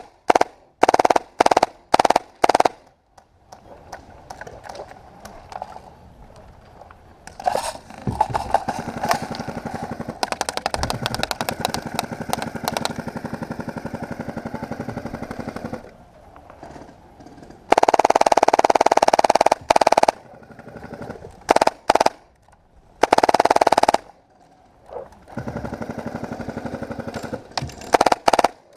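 Airsoft guns firing on full auto: several short bursts in the first few seconds, a long stretch of rapid fire in the middle, then two loud sustained bursts and more rapid fire near the end.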